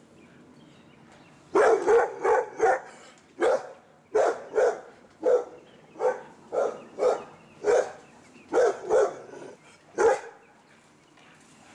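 A dog barking excitedly in a long run of about fifteen short, sharp barks, some in quick pairs, starting about a second and a half in and stopping near the end.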